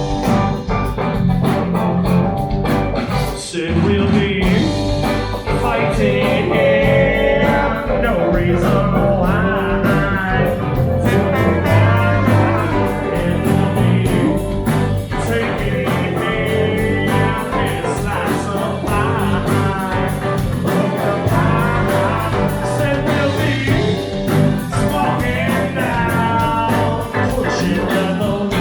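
A live band playing a song: a singer over guitar and drums, with a steady beat.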